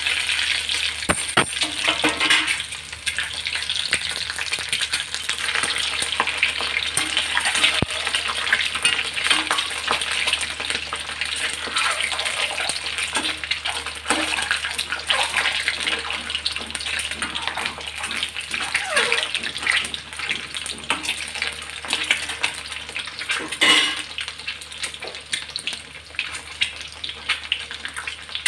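Peeled hard-boiled eggs shallow-frying in hot oil in a wok: steady sizzling and crackling, with the scrape of a metal spatula turning them now and then.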